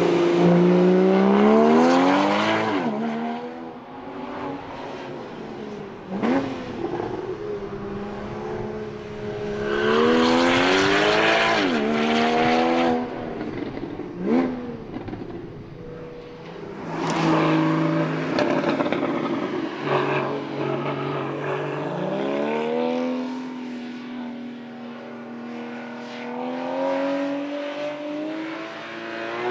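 Porsche Boxster GTS's 3.4-litre flat-six engine under hard driving. Its pitch climbs and falls several times as it accelerates and eases off, and some climbs end in a quick drop.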